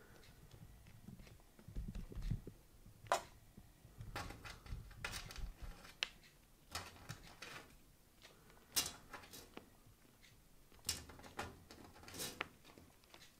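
Irregular light taps, clicks and soft thumps of a kitten's paws and claws on a wooden floor and against a wooden sliding door as it plays.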